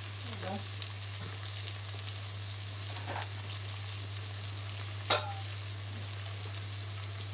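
Peppers and garlic sizzling steadily in an enamelled casserole pot on a gas hob, with two brief clicks about three and five seconds in.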